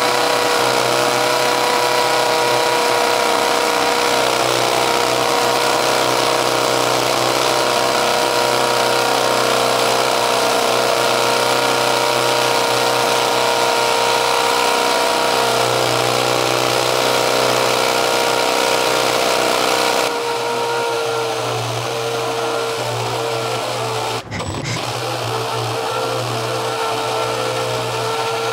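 Makita XPH07 18V brushless hammer drill drilling in hammer mode at speed 2 with a 7/8-inch bit, larger than its rated capacity, so it runs under heavy load with a steady whine. About two-thirds of the way through it gets somewhat quieter, and near the end it stops for an instant and starts again.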